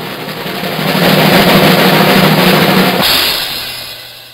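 Loud drum roll that swells and ends in a cymbal crash about three seconds in; the crash rings and fades out.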